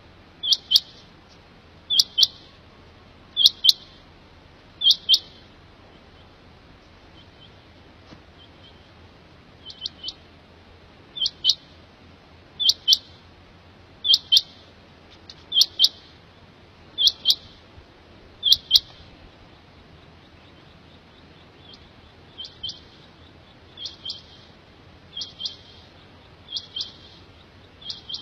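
Quail calling: a short, high two-note call repeated about every second and a half, in three runs broken by pauses of a few seconds, the last run fainter.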